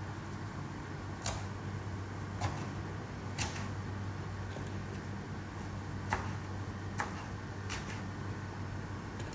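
Covered cooking pot on a gas stove: a steady low hum with light, sharp ticks at irregular intervals of about a second.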